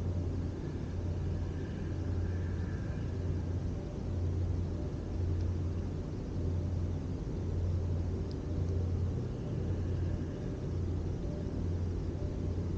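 A steady low rumble with a deep hum that swells and dips every second or so.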